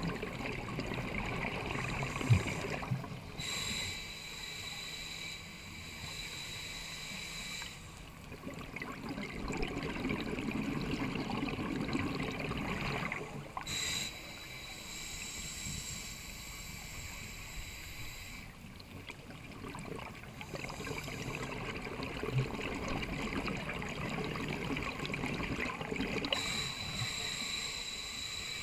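Scuba regulator breathing heard underwater: long stretches of exhaled bubbles rumbling and gurgling, alternating with shorter hissing inhales through the regulator that carry a faint whistle, about three breaths in all. A single sharp knock sounds about two seconds in.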